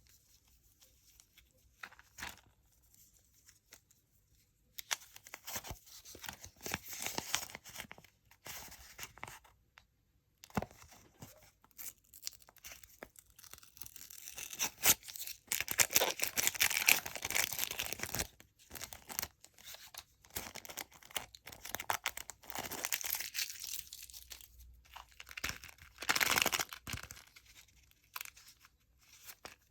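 Candy wrappers being crinkled and torn open, in irregular stretches of crackling with short quiet gaps, busiest past the middle.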